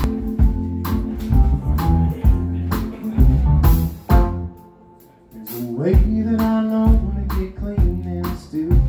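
Live band playing an instrumental passage on electric guitars and drums with a steady beat. About halfway through the band stops for a moment, then comes back in with a rising slide.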